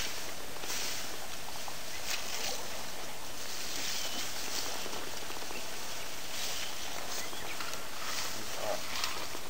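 African elephant browsing on bushes at close range: faint rustling and cracking of leaves and branches over a steady hiss, with a short chirp near the middle.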